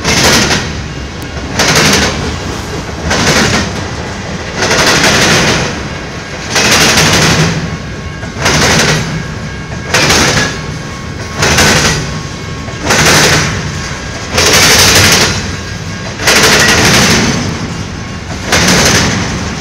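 Freight train of intermodal well cars rolling by at close range, its wheels clattering in loud bangs every second or two as each set of wheels passes over the rail crossing and joints.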